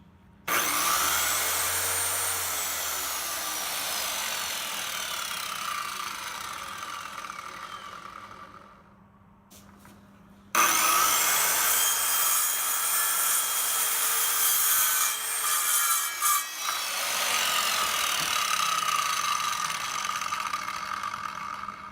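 Porter Cable PCE300 corded circular saw with a 15 amp motor, started with a sudden loud whir whose whine rises and then falls slowly as the blade coasts down for several seconds; the saw has no electric brake. About ten seconds in it starts again and runs loud and uneven, typical of cutting through wood.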